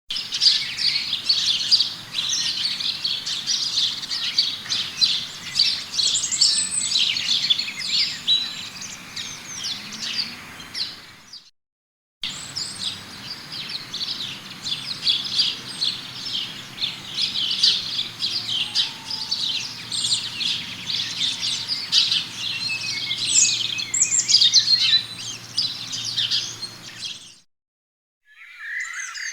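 Many small birds chirping and twittering at once, a dense, busy chorus of quick high calls. It stops briefly about eleven seconds in, starts again as a second recording, and stops once more near the end.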